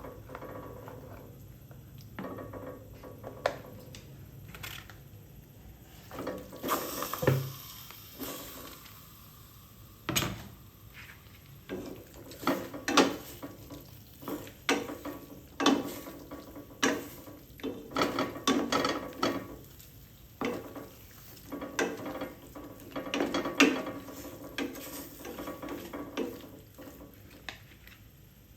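Kitchen utensils clattering and knocking against a pot and dishes during cooking, in a string of irregular clinks and knocks that come about once or twice a second in the second half.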